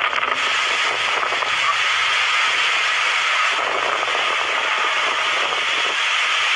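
Typhoon wind and driving rain, a steady loud rush of noise.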